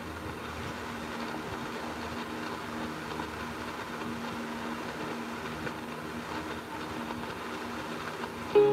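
Steady hiss and static from a portable radio's speaker tuned to an AM station during a gap in the programme, with a faint steady hum under it. Music starts again abruptly near the end.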